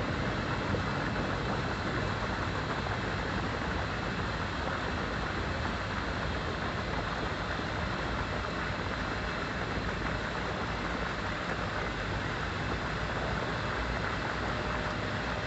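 Steady rushing and bubbling of water churned by air rising from a floating fine-bubble diffused aeration grid.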